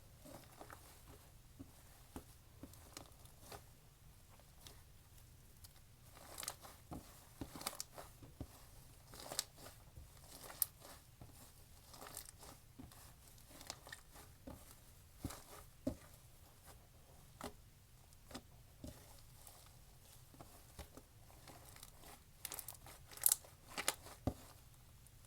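Slime being squeezed and pressed by hand, making scattered small crackles and pops, with a cluster of louder ones near the end.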